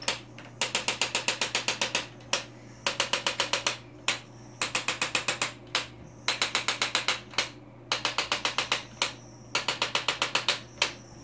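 Handheld electronic chiropractic adjusting instrument thumping against a dog's hip. It fires in bursts of rapid clicks, about ten a second, each burst lasting around a second and repeated every second and a half or so, over a steady low hum.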